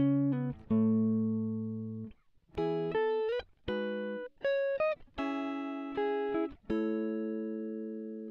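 Background music: a clean guitar playing a slow phrase of plucked notes that ring out and fade, with a couple of quick slides between notes.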